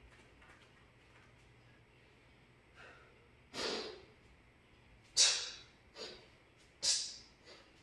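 Forceful breaths through the nose and mouth, timed to kettlebell swings. A longer breath comes about three and a half seconds in, as the bell is gripped. From about five seconds in, sharp hissing breaths follow roughly once a second, alternating strong and weaker.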